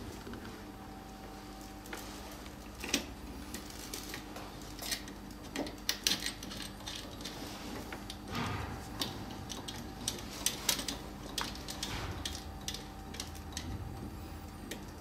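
Small metal clicks, taps and rattles as round screw-on cable connectors are fitted and turned onto the sockets of a beauty machine's back panel, the cables knocking against each other, over a steady low hum.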